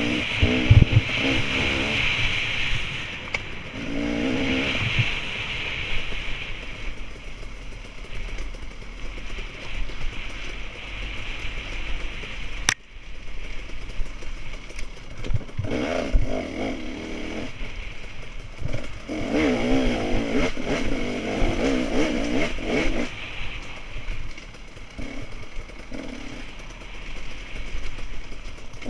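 Off-road race vehicle's engine, heard from an onboard camera. It revs up and down repeatedly as the rider works the throttle over a rough, dusty dirt track, over steady wind rush and clatter from bumps. There is a single sharp click about 13 seconds in.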